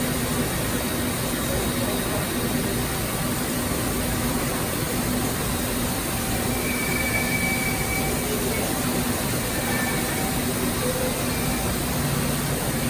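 Okuma Howa 2SP V35 vertical turning lathe running: a steady mechanical hum with a low, even tone and a faint higher whine over a bed of noise.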